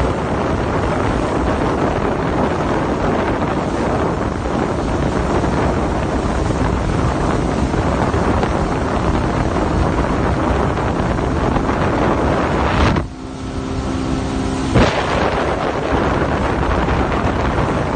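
Strong wind buffeting the microphone: a loud, steady, low rumbling noise. It cuts out briefly about thirteen seconds in and comes back with a sudden thump.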